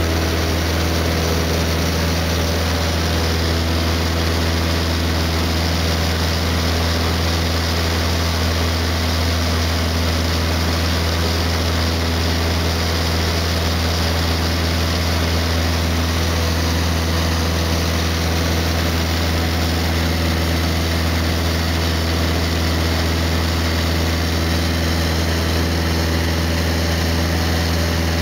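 Cessna 152's four-cylinder Lycoming engine and two-blade propeller running steadily in flight, heard from inside the cabin as a constant low drone that holds the same pitch throughout.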